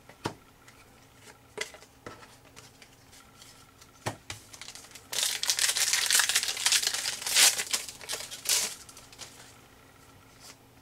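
A few light taps of cards set down on a table, then a trading-card pack's shiny wrapper is torn open and crinkled for about three and a half seconds, starting about five seconds in.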